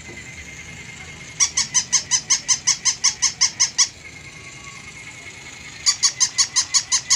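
Battery-operated plush toy dog giving rapid electronic yips, about five a second, in a run of a couple of seconds that starts again near the end. A faint steady whine sounds between the runs.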